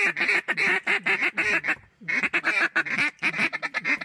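Duck call blown in a rapid run of mallard quacks, about seven a second, with a short break about two seconds in: calling to circling ducks to draw them into the decoys.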